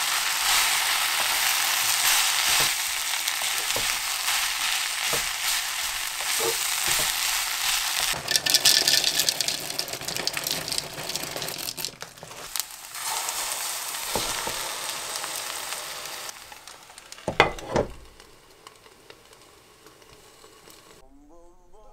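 Kimchi fried rice sizzling in a frying pan while a wooden spatula stirs it and taps against the pan. A wire whisk beats eggs, cheese and milk in a measuring cup about eight seconds in, followed by more sizzling. Near the end come two sharp knocks as a wooden cutting board is laid over the pan as a lid.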